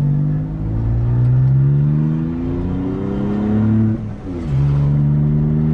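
Volkswagen up! TSI's 1.0-litre turbocharged three-cylinder engine running with its exhaust removed, just a straight pipe, heard from inside the cabin. The revs climb under acceleration, break off briefly about four seconds in as a gear is changed, then pick up again and hold fairly steady.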